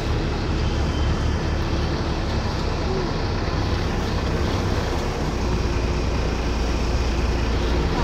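Boat engine running steadily, heard from on board, with a strong low drone that does not change.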